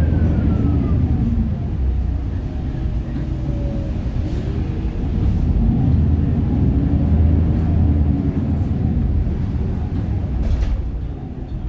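City bus running, heard from inside the passenger cabin: a steady low engine and road rumble.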